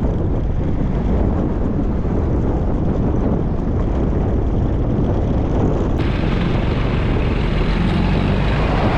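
Steady rush of wind buffeting the microphone, with road and engine noise from a moving vehicle. The sound changes abruptly about six seconds in.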